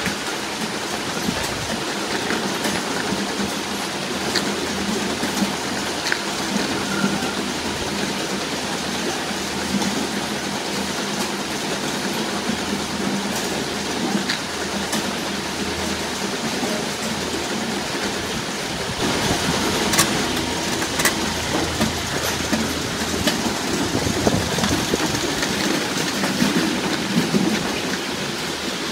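Avocado packing-line conveyors and sorting machinery running: a steady mechanical rattle and hum with scattered sharp clicks and knocks. The sound turns brighter and hissier about two-thirds of the way through.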